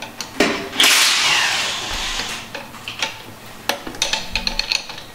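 Hand tools working a transmission shift linkage: a couple of sharp metal clicks, then a loud rasping noise about a second in that fades away over a second and a half, then a run of light metallic clinks near the end.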